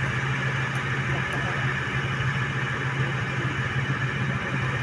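Steady low engine hum of heavy vehicles, heard from inside a vehicle as an armoured military truck and a semi-trailer truck pass by.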